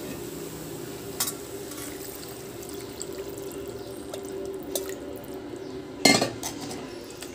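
Water being added to a kadhai of fried vegetables and macaroni, with stirring in the pan, over a steady hum. A loud knock against the pan about six seconds in.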